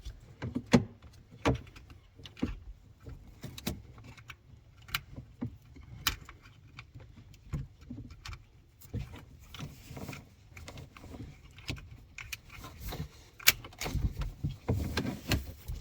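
Irregular clicks, taps and light rattles of hands working inside a car door, twisting and unhooking the cable from a door lock latch actuator. The sharpest clicks come about a second in and near the end.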